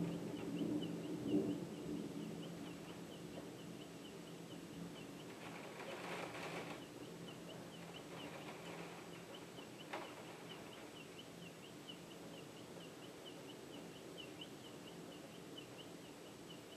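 Thunder rumbling away to quiet over the first couple of seconds, then a faint steady background in which a bird chirps in a quick, high, repeated series. A single click about ten seconds in.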